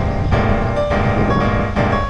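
Background music led by piano, with quick repeated notes over a steady bass.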